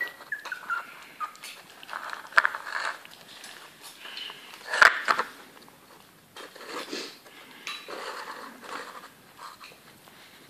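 Four-week-old Bichon Frise–Yorkshire Terrier cross puppies eating their first solid food at weaning: wet smacking and lapping, with plastic bowls clicking and scraping on the floor. A short, high, falling whine comes right at the start, and a sharp knock about five seconds in is the loudest sound.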